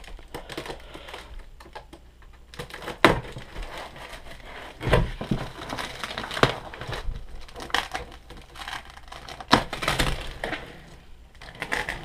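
Styrofoam packing blocks being pulled and shifted out of a cardboard box: irregular scraping and rubbing with scattered sharp knocks, the loudest about 3, 5, 6.5 and 10 seconds in.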